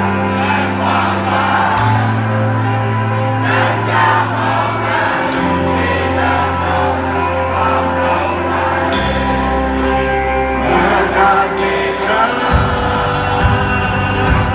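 Band music: a held bass line stepping to a new note every two to three seconds under sustained chords, with several cymbal crashes.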